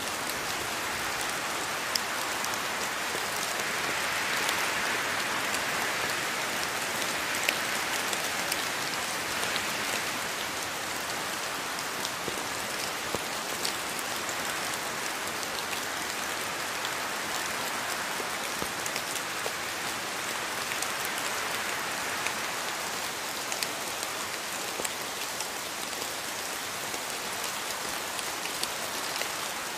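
Steady rain falling on foliage, a dense hiss with many individual drops ticking throughout.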